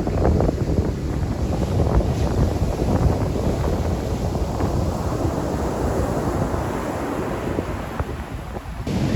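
Wind buffeting the microphone over ocean surf washing onto a beach, a steady gusting rush that changes abruptly just before the end.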